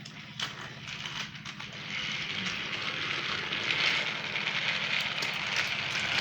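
Battery-powered motorized toy train running on its track: a small electric motor whirring steadily with a fine rapid rattle, louder from about two seconds in.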